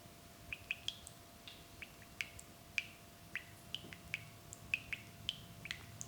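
Small birds chirping: short, sharp chirps, about three a second at irregular intervals, over a faint steady hum.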